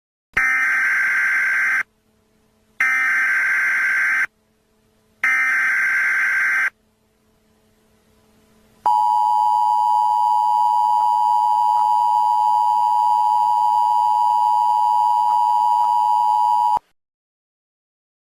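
Emergency Alert System header: three bursts of digital data tones, each about a second and a half long and a second apart, followed by the steady two-tone attention signal held for about eight seconds and cutting off abruptly. It marks the start of an emergency alert broadcast.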